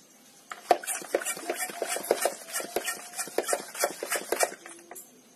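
Hand trigger sprayer on a plastic bottle pumped rapidly, about four squirts a second, each a click of the trigger with a short hiss of spray. It starts about half a second in and stops shortly before the end.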